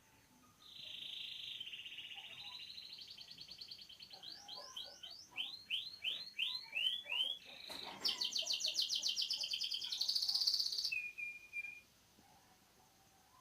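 Domestic canary singing a long song: a buzzing trill that climbs slowly in pitch, a run of quick falling slurred whistles, then a fast high trill and one short closing note.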